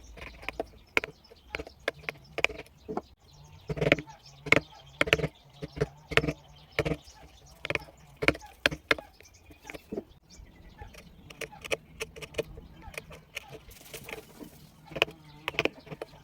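Wood-carving V chisels cutting into wood: a run of short, irregular taps and clicks, a few a second.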